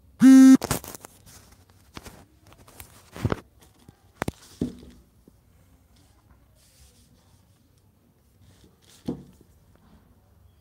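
A loud, short buzzing beep at the very start, then a thick paperback book being handled over a plastic courier mailer: scattered rustles of the plastic and taps and clicks of the book and its pages, a few louder ones in the middle and one more near the end.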